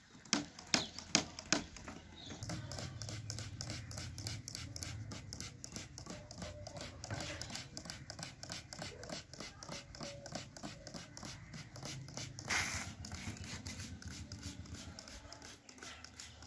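Hand-held trigger spray bottle squirting a lice-treatment solution of insecticide powder mixed in water onto an animal's coat: quick, evenly repeated spritzes, several a second, sharpest over the first couple of seconds, with one longer, louder hiss about twelve and a half seconds in.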